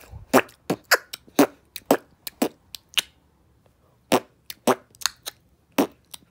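Beatboxing: a run of short, sharp percussive mouth sounds in a loose rhythm, pausing for about a second midway.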